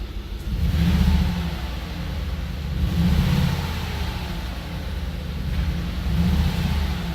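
2003 Audi RS6's twin-turbo V8 revved three times in short blips from a steady run. The engine has misfires on cylinders 2 and 7, which the owner blames on a faulty ECM.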